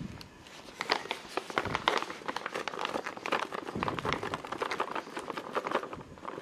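Paper bag of frying batter mix crinkling and rustling as it is handled and tipped, powder pouring into a stainless steel bowl of cut potatoes, in many small irregular crackles.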